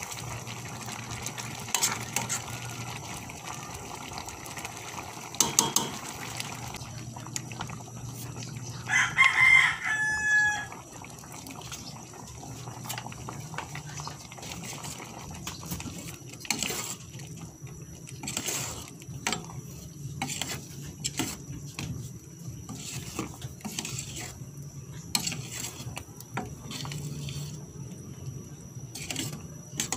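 Thick mung bean soup stirred with a ladle in a stainless steel pot: the ladle scrapes and knocks against the pot through the thick liquid. About nine seconds in, a loud pitched call lasting about a second and a half is the loudest sound.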